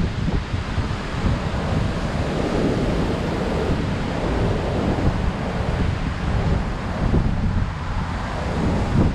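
High surf breaking continuously on a sandy beach, with strong wind buffeting the microphone.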